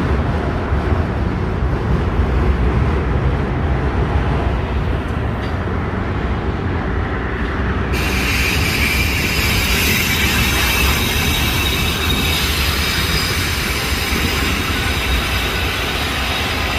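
Freight train cars rolling past with a steady low rumble; about eight seconds in, a high-pitched wheel squeal starts and keeps on, from wheel flanges rubbing against the rail on a curve.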